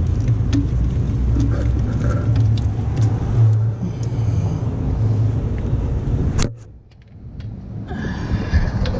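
A steady low mechanical hum with light clicks and clinks of hand tools on metal. It cuts out abruptly about six and a half seconds in and comes back gradually over the next second and a half.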